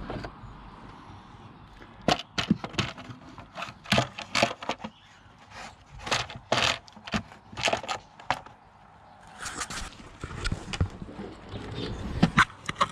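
Hard plastic air filter housing cover of a BMW E39 520d knocking, clicking and scraping against the casing as it is worked into place by hand. The sharp taps come in a string from about two seconds in to about eight seconds, and there is another cluster near the end.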